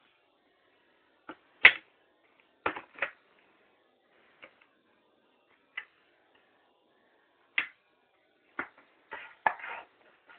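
Handling noise: about a dozen short, sharp clicks and plastic rustles at irregular intervals as plastic DVD cases and a bagged action figure are picked up and moved.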